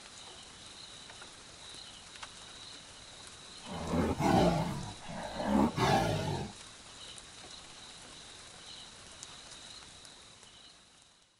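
A tiger roaring twice, about four and six seconds in, each roar about a second long, over a faint steady high insect trill that fades out at the end.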